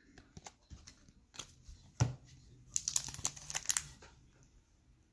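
Trading cards and pack wrappers being handled on a table: scattered light clicks and crinkling, with a sharper tap about two seconds in and a quick run of clicks a little later.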